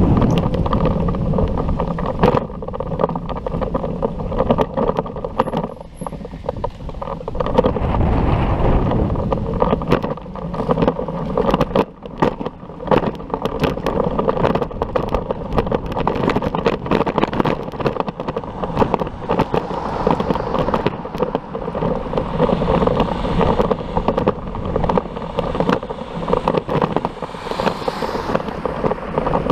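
Wind and road rumble on a bicycle-mounted action camera's microphone while riding, with frequent small knocks and rattles throughout.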